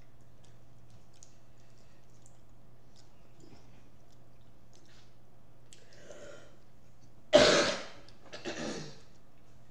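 A person coughs near the end: one loud, sudden cough followed by a weaker one. Before that, faint clicks of a metal fork against a plate.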